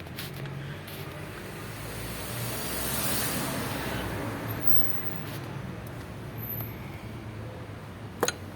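A steady low engine hum, with a hiss that swells and fades around three seconds in, and a sharp click near the end.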